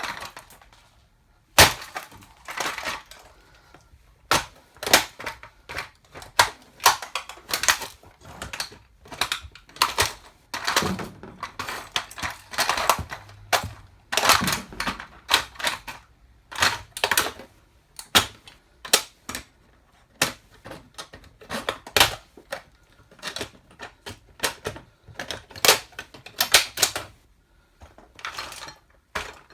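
A toy car being crushed under 8-inch platform high heels: many sharp cracks, snaps and clacks in an irregular run, some in quick clusters.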